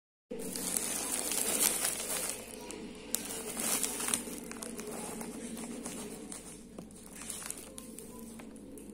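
Two domestic cats crunching dry kibble: a run of irregular crisp crackles, louder and denser for the first few seconds and softer after, over a steady low hum.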